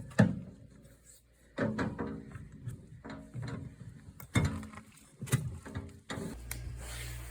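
Clunks and knocks of a small tire and steel rim being handled on a hitch-mounted tire-changing bar, a few sharp hits with a ringing tone after them. A steady low hum starts near the end.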